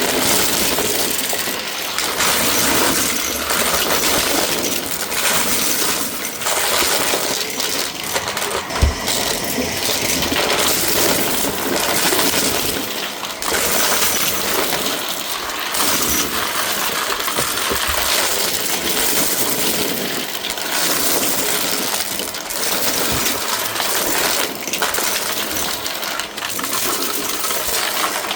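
Shark vacuum cleaner running steadily, with constant clinking and crackling as it sucks up loose debris.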